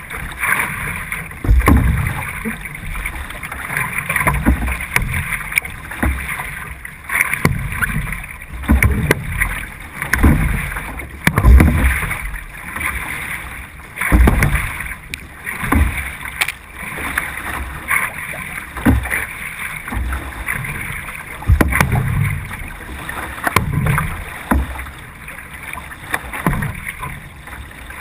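C1 sprint canoe being paddled hard, heard close from a camera on the boat's deck: the single-blade paddle catching and pulling through the water with a low surge of water noise at each stroke, roughly one a second, over a steady hiss of water along the hull.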